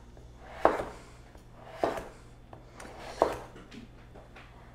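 A knife slicing through delicata squash and knocking onto a wooden cutting board three times, a little over a second apart.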